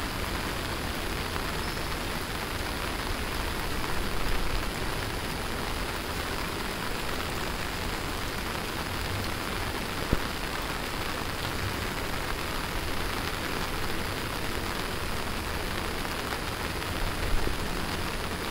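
Steady rain falling and splashing on wet paving and roofs, with a single short knock about ten seconds in.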